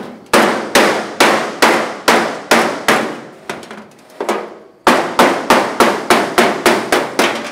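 Hammer blows on the sheet-metal roof panel of a 1936 Terraplane coupe, each strike ringing. A steady run of about seven blows is followed by two lighter taps, then a faster run of about ten.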